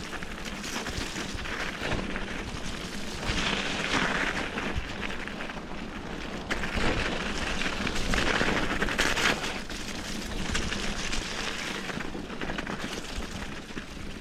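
Bicycle tyres crunching and rolling over a forest trail, recorded on a bike-mounted action camera, with wind rumble on the microphone. The crackly noise swells louder a few times as the bike picks up speed or hits rougher ground.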